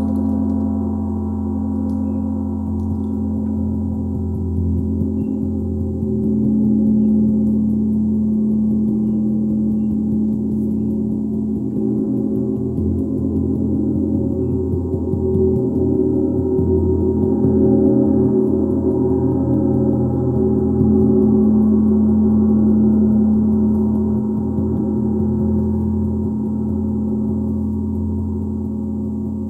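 A gong ringing in a sustained wash of many overlapping low tones, slowly swelling and ebbing without distinct strikes.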